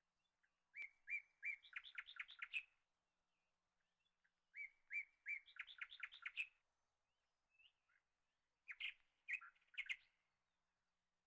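A songbird singing three short phrases, each opening with a few spaced chirps that run into a quick series of higher notes.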